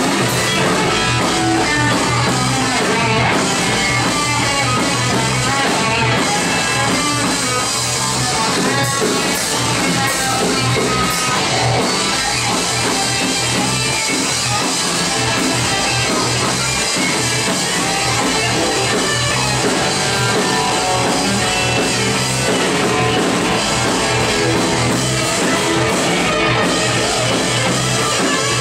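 Live rock band playing loud and steady: electric guitar over drums.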